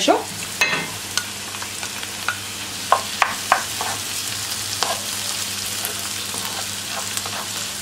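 Diced tomato tipped into onion frying in oil and butter in a frying pan, then stirred in with a wooden spoon: a steady sizzle, with the spoon knocking against the pan several times, most sharply around three seconds in.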